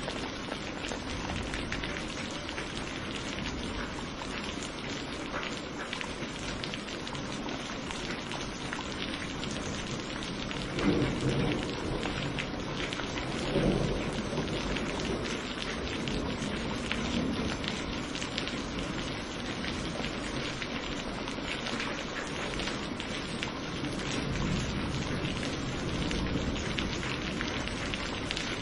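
Steady heavy rain falling, with thunder rumbling twice about halfway through, the second peal a few seconds after the first, and a softer swell of rumble near the end.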